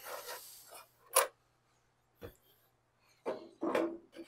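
Scattered clinks and knocks of hand tools and metal parts being handled during engine work, with a rustle at the start and the sharpest clink about a second in, over a faint steady hum.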